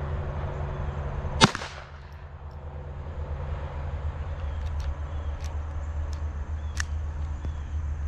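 A single sharp shot from a Walther P22 .22 LR pistol firing a CCI Mini Mag 40-grain high-velocity round, about a second and a half in.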